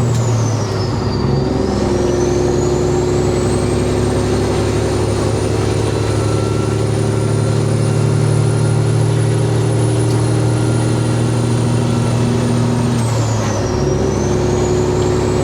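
Peterbilt 389 glider semi truck's diesel engine pulling steadily under load, with a high turbo whistle that drops at a gear shift about a second in and again near the end, climbing back after each shift.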